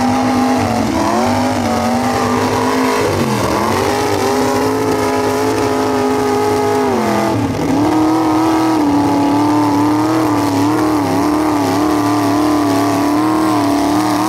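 Mud truck's engine, through upright exhaust stacks, held at high revs as the truck drives through a mud pit. The pitch dips briefly about three seconds in and again about seven and a half seconds in, then runs a little higher and wavers.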